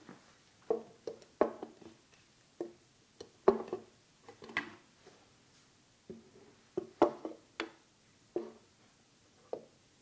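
Sound-effect props being struck and handled: about fifteen sharp knocks and clacks at irregular intervals, some with a brief ringing tone, with quiet between them.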